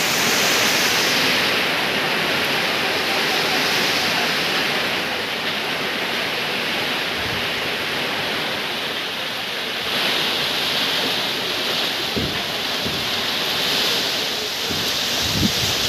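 Heavy typhoon rain pouring down in a steady, dense hiss. Gusts of wind buffet the microphone a few times near the end.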